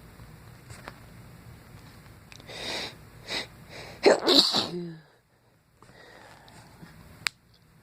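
A man sneezes once, about four seconds in, a loud sudden burst after a couple of quick breaths in. A single sharp click near the end.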